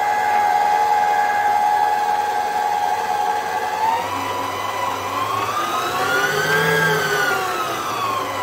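Electric stand mixer running with a dough hook, working flour, water and oil into a rough bread dough, with a steady motor whine. The pitch steps up about four seconds in, then rises and falls back over the last few seconds.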